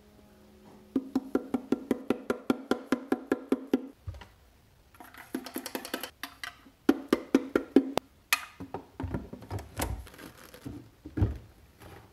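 Coffee-making sounds at a Cuisinart burr grinder and drip coffee maker: a quick, even run of clicks, about four or five a second, a short burst of grinding, then knocks and rattles as the machines are handled.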